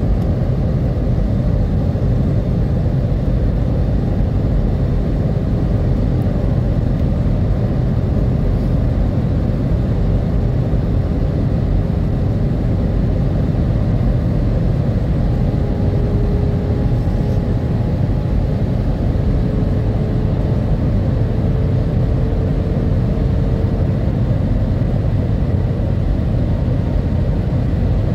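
Steady roar of jet engines and rushing air heard inside an airliner's cabin on its descent to land. A faint hum rides on it and creeps up slightly in pitch in the second half.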